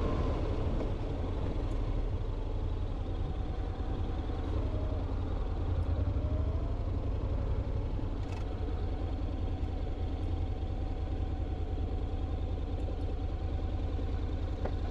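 Honda X-ADV's 745 cc parallel-twin engine running steadily at low road speed.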